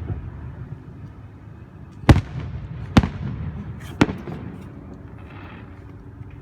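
Aerial fireworks bursting overhead: three sharp bangs about a second apart, starting a little past two seconds in, each trailing off over a low rumble.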